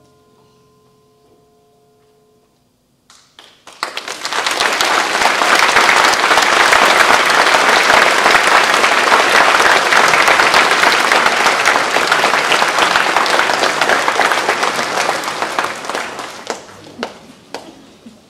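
The last held chord of a concert band dies away, then an audience bursts into loud applause that holds for about ten seconds and tapers off to a few last claps.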